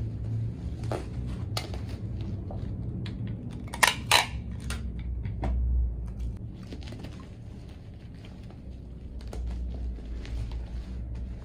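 Plastic bubble wrap crinkling and crackling as it is folded and pressed around a small cardboard box, with two loud sharp crackles about four seconds in. A steady low hum runs underneath.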